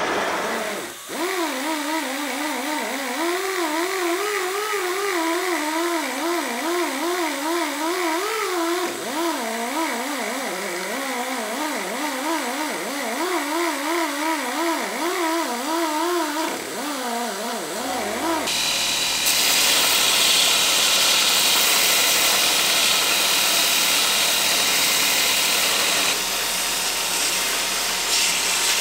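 A pneumatic die grinder with a rotary burr whines at a high pitch that wavers up and down as it is pressed into a steel hammer head. About eighteen seconds in, it gives way to a louder, hissing belt grinder grinding steel.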